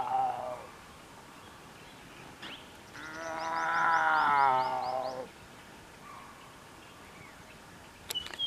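A tiger calling: a long, wavering, pitched call that fades out in the first half-second, then a second call about two and a half seconds long, rising slightly and then falling away.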